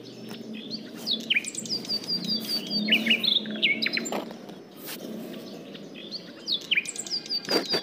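Small birds singing, repeating phrases of quick falling chirps and a high trill, over a low steady hum. A couple of short knocks come from plastic toys being set down on the sand.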